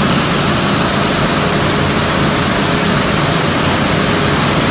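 Rice mill machinery running: a loud, steady mechanical noise with a faint hum underneath, unchanging throughout.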